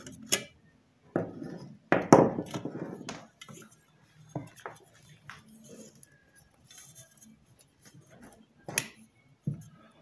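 Scattered clinks and knocks from a blender's metal base being taken apart by hand, with a screwdriver working at the bottom and the bottom cover coming off. The busiest rattling comes between about one and three seconds in, and there are single sharp clicks near the end.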